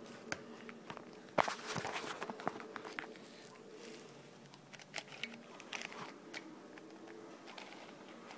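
Shengshou 7x7 puzzle cube being turned by hand: its plastic layers click and clack in quick, irregular turns, with the loudest flurry of clacks about a second and a half in.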